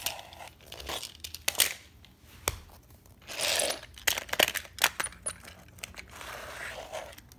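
Plastic Hot Wheels track pieces and toy cars being handled on a wooden surface: a run of sharp clicks and knocks, with scraping rustles about halfway through and again near the end.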